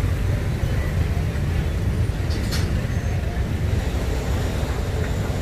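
Steady low rumble of street traffic, with a brief faint click about two and a half seconds in.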